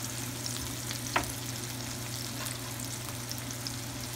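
Chopped onion, tomato and serrano pepper sizzling in olive oil in a frying pan, a steady crackle, with one sharp click about a second in.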